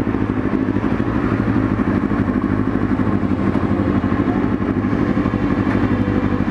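Sport motorcycle engine idling steadily, with an even, fast pulsing beat.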